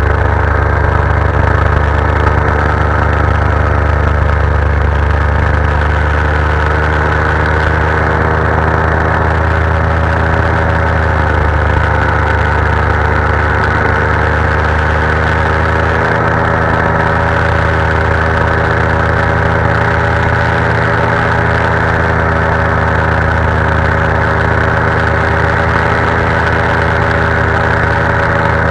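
Paramotor engine and propeller running steadily in flight, loud and close. The engine note dips slightly about eleven seconds in and then comes back up.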